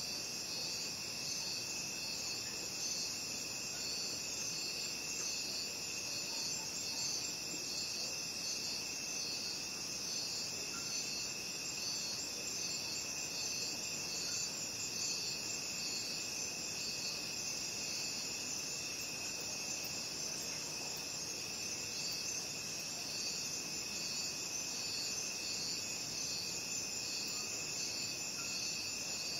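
Crickets chirping in a steady chorus: one constant high trill with a second, higher chorus of rapid pulsing chirps over it, unchanging throughout.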